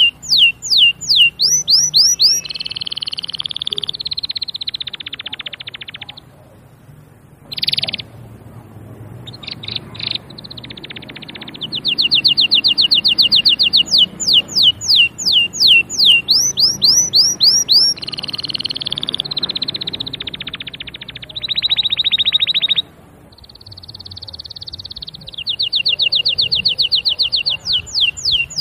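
Canary singing a long song made of repeated phrases: loud sweeping whistled notes several times a second alternate with rapid rolling trills. There are short breaks about six seconds in and again near 23 seconds.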